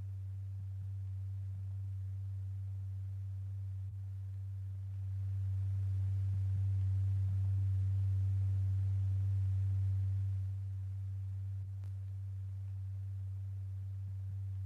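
A steady low pure tone, the kind of sine tone fed to a vibrating membrane in a cymatics experiment. It swells louder for about five seconds midway, then settles back to its earlier level.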